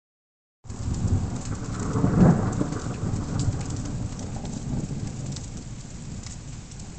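Thunder rumbling deep and long, building to its loudest about two seconds in and then slowly dying away, over falling rain with scattered drop ticks.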